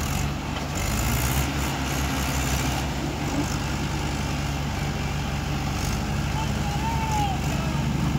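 Mahindra 575 XP Plus tractor's diesel engine running steadily at a low, even pitch.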